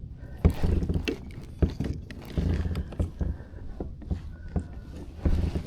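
Fishing gear being handled in a kayak: irregular knocks, clunks and rattles, coming in several short bursts.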